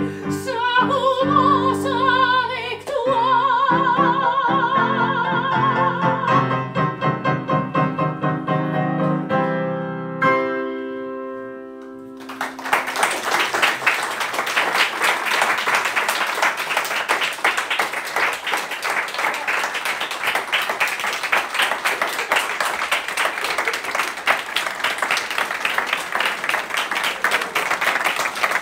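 A soprano sings with piano accompaniment, ending on a held chord that dies away about twelve seconds in. Then a small audience applauds, and the clapping keeps going.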